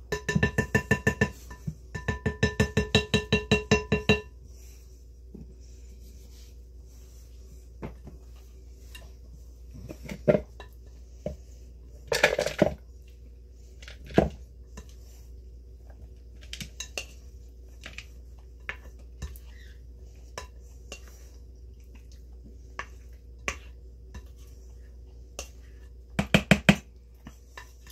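A spoon scraping and tapping rapidly against a ringing bowl for about four seconds as salad is spooned into a container. Then come scattered clinks and knocks of dishes and utensils, with louder clatters about twelve seconds in and near the end.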